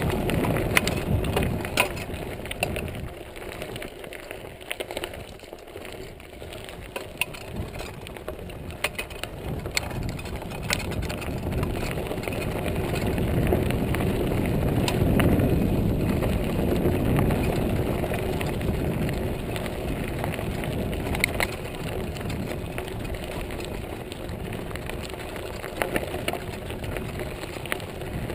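Montague Paratrooper Pro mountain bike rolling along a gravel trail. Its tyres make a steady rushing crunch on the crushed stone, louder about halfway through, with scattered sharp clicks and rattles from the bike over the bumps.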